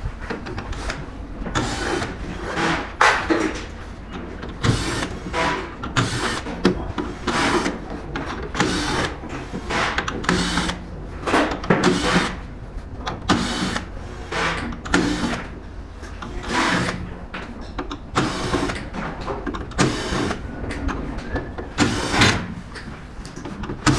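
An electric screwdriver running in many short, irregular bursts as screws are backed out along the edge of a relay board, with small metallic handling noises in between.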